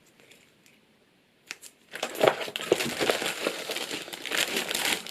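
Packaging being handled and pulled away from a keyboard in its box: after a single click, a continuous crinkling and crackling starts about two seconds in.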